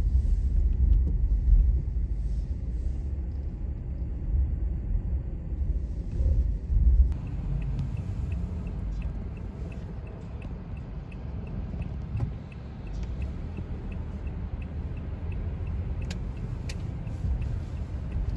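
Low rumble of a car on the road, heard from inside the cabin. It is louder for the first seven seconds and then eases. A faint, regular ticking runs through the middle stretch.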